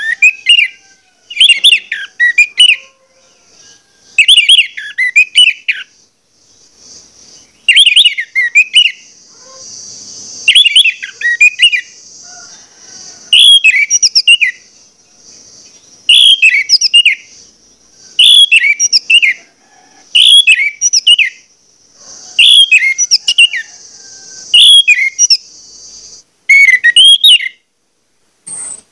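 Orange-headed thrush (anis merah) singing loud, fast whistled phrases in short bursts, about one burst every two to three seconds, a dozen in a row.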